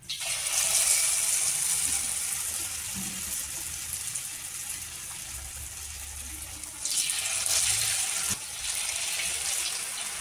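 Batter-coated wheat-flour mini samosas sizzling as they hit hot oil for deep-frying. The sizzle starts suddenly, stays steady, and swells again about seven seconds in as more pieces go into the oil.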